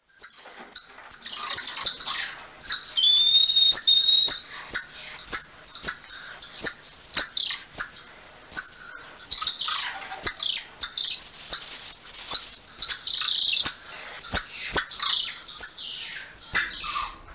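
Golden lion tamarins (Leontopithecus rosalia) calling: a busy run of high-pitched chirps, squeaks and sharp clicks, with a few longer held whistles, one about three seconds in and another about eleven seconds in.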